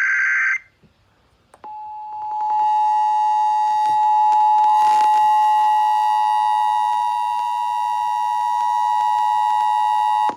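The end of an Emergency Alert System SAME data burst, a brief buzzy warble, then after a short gap the EAS two-tone attention signal, which sounds steadily for almost nine seconds and cuts off suddenly. It is the alert signal that comes before a spoken severe thunderstorm warning.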